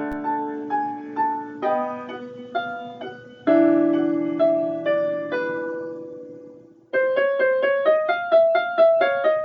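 Intro music played on a piano or electric piano: single notes over held chords, breaking into a quicker run of notes about seven seconds in.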